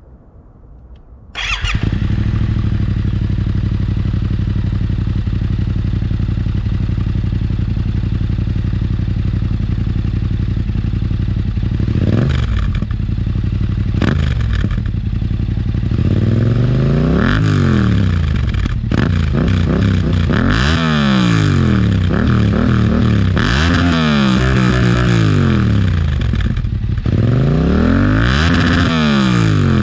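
Yamaha MT-07 parallel-twin engine through an Akrapovič Racing Line exhaust with the baffle in, cutting in sharply about a second in and idling steadily. Near the middle it is blipped twice, then revved repeatedly, the pitch rising and falling with each rev.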